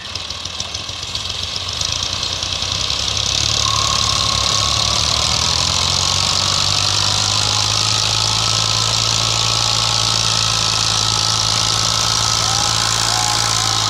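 Tractor diesel engines working hard under load as a small tractor drags a heavily loaded trolley through ploughed soil. The engine sound grows over the first few seconds, then holds steady and loud.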